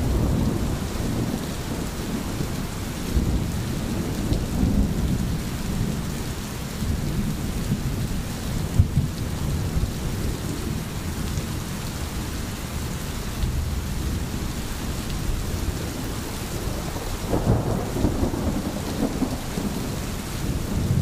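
Thunder rumbling over a steady hiss of rain, the rumble swelling a few seconds in and again near the end, with one brief thump near the middle.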